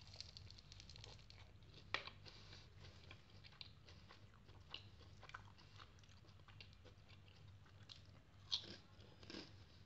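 Faint scattered crackles and crunches of crispy deep-fried chicken lollipops being pulled apart by hand and chewed, with a sharper crack about two seconds in and another near the end.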